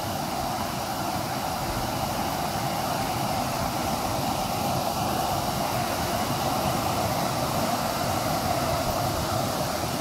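Steady rush of water from the Leuenfall waterfall and the stream it feeds, an even, unbroken roar.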